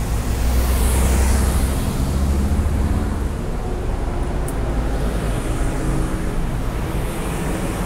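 Street traffic with a motor vehicle's engine running close by, loudest in the first few seconds and then easing into steady traffic noise.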